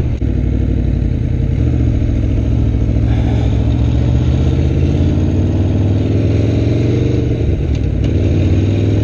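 Aprilia Tuono V4 1100 Factory's V4 engine running under way through its factory exhaust, its pitch climbing slowly through the middle as the bike pulls in gear, with a brief break near the end.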